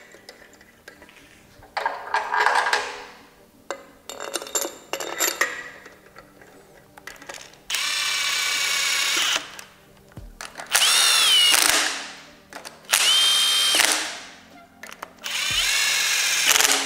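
Cordless drill/driver running head bolts down into an engine block in four short runs of one to two seconds each, the motor pitch mostly steady, once rising and falling. Light metal clinks and rattles come first as the bolts are handled.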